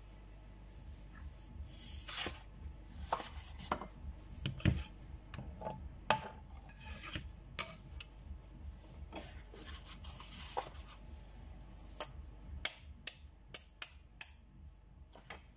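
Light rubbing, scraping and small clicks from handling a non-stick frying pan and spatula on a glass cooktop, with a run of sharp taps near the end as a knife taps an egg's shell to crack it.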